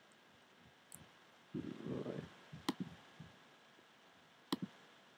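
Three sharp computer mouse clicks, about a second in, near the middle and about four and a half seconds in, with a soft low rustle shortly before the middle click, over faint room tone.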